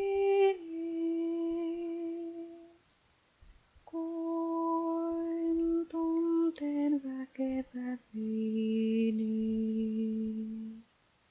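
A woman's voice humming a slow wordless melody in long held notes, with a quick falling run of short notes midway before a last lower held note.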